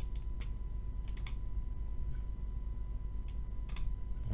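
About six sharp computer mouse-button clicks, loosely in pairs, over a low steady hum.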